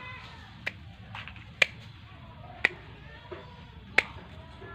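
Hand pruning shears snipping off thin branches of a lohansung (Podocarpus) cutting: four sharp snips about a second apart.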